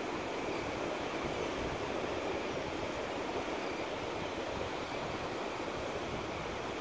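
Steady beach ambience: the even, unbroken wash of ocean surf.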